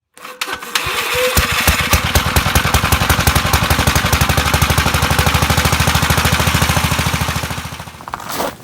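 Small engine of a Gravely walk-behind tractor running at a steady speed, with an even, rapid exhaust beat of about a dozen pulses a second, fading out near the end.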